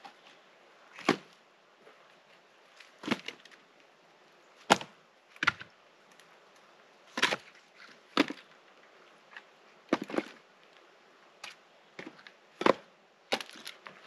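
Split firewood pieces knocking against each other as they are set down on a stack: about a dozen hard wooden clunks at irregular intervals, one to two seconds apart.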